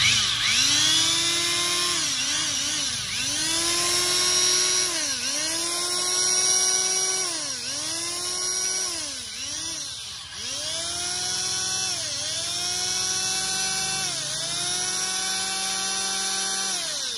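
Makita electric hand planer running unloaded with a high whine. Its pitch dips and recovers about a dozen times, and the motor is switched off near the end and winds down. The motor runs well.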